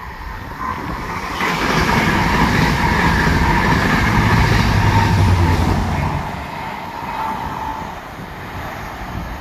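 Transport for Wales passenger train hauled by a Class 67 diesel locomotive (two-stroke V12) passing close by: the rush of wheels on rail and a deep steady engine hum swell up about a second and a half in, hold for several seconds, then fade as the train runs away.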